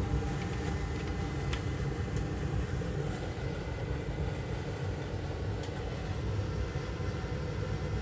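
Steady whir and hum of a powered-on test computer's fans and power supply running, with a couple of faint clicks.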